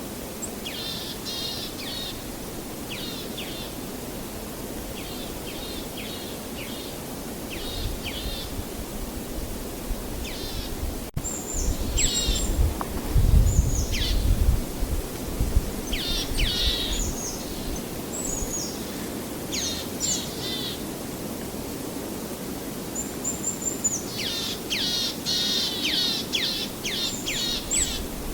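Songbirds chirping in short, quickly repeated phrases, more densely near the end, over a steady hiss of background noise. A low rumble swells briefly about halfway through.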